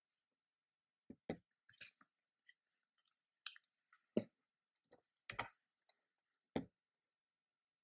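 Scattered keyboard keystrokes: about a dozen separate clicks and knocks at an irregular pace, with short pauses between them.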